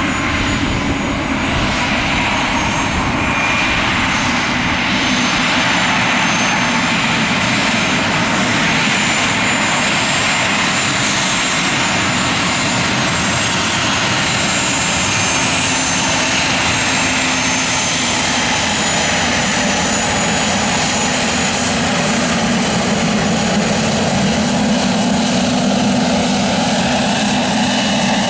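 Three-engine Dassault Falcon business jet taxiing past on idle-to-taxi power: a steady jet rush with a thin high whine.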